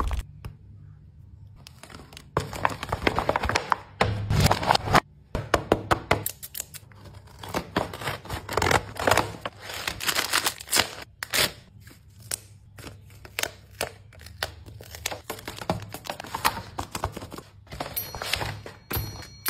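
Paper rustling and crinkling as hands open a hand-drawn paper blind bag and slide the paper pieces out. Irregular sharp crackles start after a quiet second or two.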